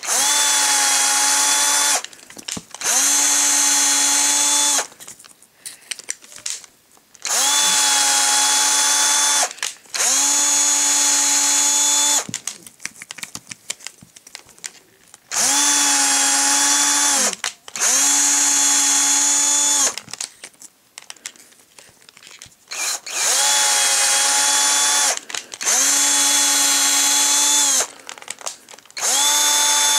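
Cordless drill driving a 10-32 tap through the set-screw holes of a drill gearbox housing. The motor whines steadily in runs of about two seconds each, mostly in pairs with short pauses between, as it works hole after hole.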